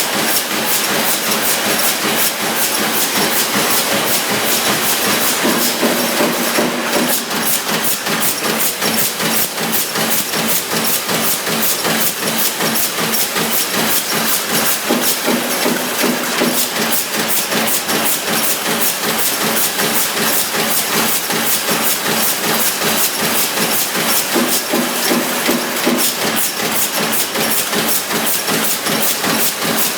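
Sheet-metal press line running, the press striking in rapid, even strokes over a steady hiss.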